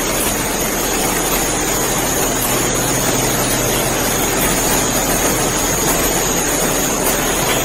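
Steady drone of an idling police SUV engine in an enclosed garage, with a thin steady high whine above it.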